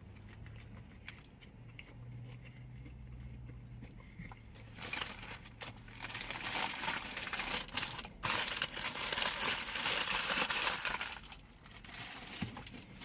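Paper fast-food wrapper crinkling and rustling as it is handled. The sound starts with a few faint clicks, grows into a loud, dense crackle from about five seconds in, and dies down shortly before the end.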